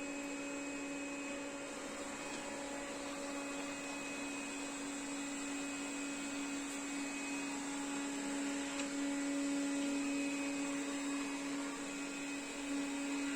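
Puppyoo R30 robot vacuum running on a high-pile carpet, its motor at raised suction with the turbo brush working: a steady hum with a high whine, swelling a little in the second half as the carpet loads it.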